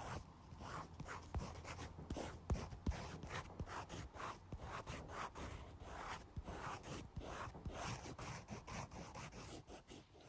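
Close-miked ASMR drawing sounds: a fine-liner pen making short scratchy outlining strokes, about two a second, with a few sharp ticks, stopping near the end.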